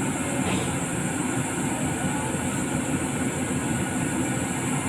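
Diesel engine of a CAT 320D excavator running steadily, with a dense low rumble and no change in speed.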